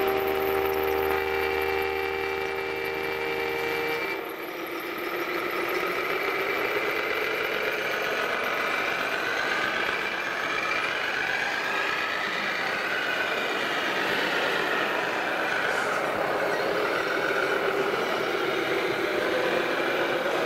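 A horn sounds a held multi-note chord for about four seconds, then cuts off suddenly. After it comes the electronic engine sound of radio-controlled scale trucks' sound modules, rising and falling in pitch as the trucks manoeuvre.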